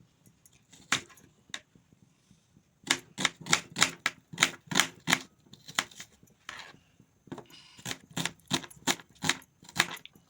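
Knife chopping quickly, a run of sharp knocks about three a second. A few scattered chops come first, and the steady rhythm starts about three seconds in.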